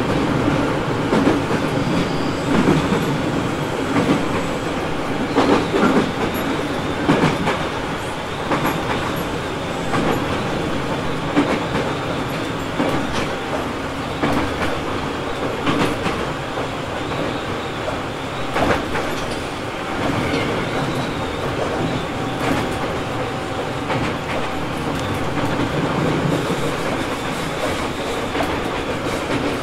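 Tobu 850-series electric railcar (MoHa 854-1) running along the line: a steady rumble of wheels and running gear, with irregular clacks of the wheels over rail joints.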